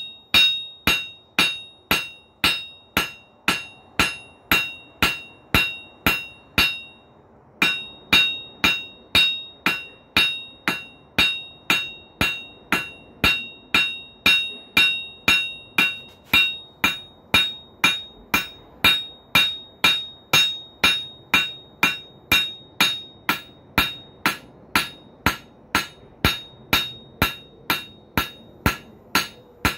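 Blacksmith's hammer striking hot steel on an anvil at a steady pace of about two blows a second, each blow ringing, with a brief pause about seven seconds in: truing up a forged hinge pintle.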